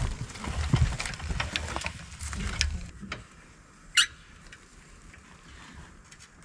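Hand crank of a camping trailer being worked by hand, giving irregular clicking and knocking for about three seconds. Then it goes quieter, with one sharp click about four seconds in.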